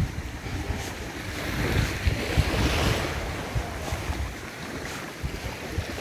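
Sea waves washing onto a sandy beach, one surge swelling and fading about halfway through, with wind buffeting the microphone.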